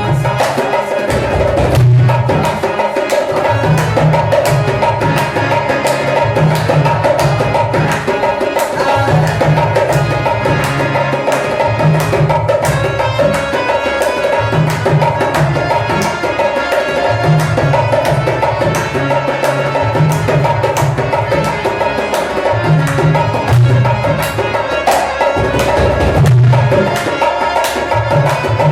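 Instrumental folk-song music: a hand drum plays a driving rhythm of low strokes under a sustained melody line, with no singing.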